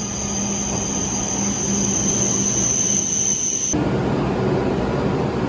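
E7 series Shinkansen arriving at a station platform, a steady high-pitched squeal over its low running hum. About three and a half seconds in the squeal stops and gives way to the louder rushing noise of the carriages sliding past close by.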